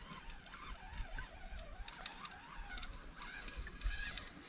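Faint, distant bird calls wavering up and down over a quiet outdoor background, with a few soft clicks.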